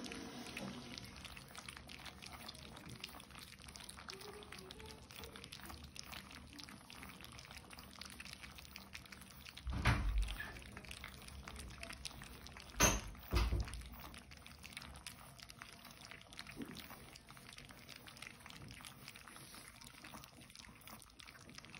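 Several French bulldog puppies lapping and slurping wet mush from plastic feeder bowls, a dense patter of small wet clicks. There is a dull thump about ten seconds in and two more about three seconds later.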